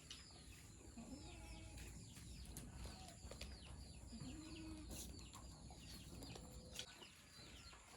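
Faint bird chirping: many quick, falling chirps one after another, with a few faint low calls underneath.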